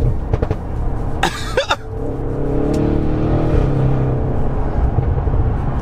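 Tuned Audi RS6's twin-turbo V8 through a valved Milltek non-resonated cat-back exhaust, heard from inside the cabin: a steady, loud drone that rises slightly in pitch as the car pulls. A short cough-like burst of voice comes about a second in.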